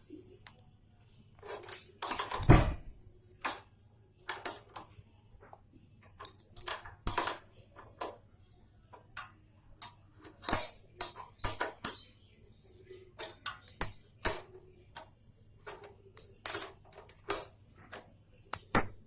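Irregular metallic clicks and clinks of a spanner working on a motorcycle's rear axle nut, loosening it for a chain adjustment, with the loudest knock about two and a half seconds in.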